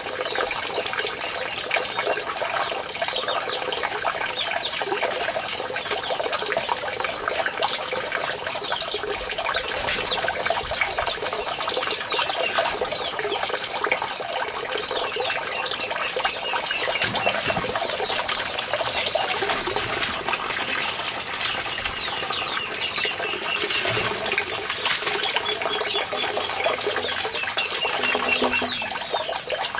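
Dense, continuous chirping of many birds over a steady rushing background.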